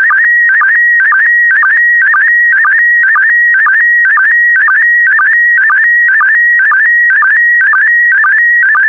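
Slow-scan television (SSTV) signal in PD120 mode. A high warbling tone wavers around 2 kHz and drops briefly to a lower pitch about twice a second. Each drop is the sync pulse that starts a new pair of image lines while the picture is being sent.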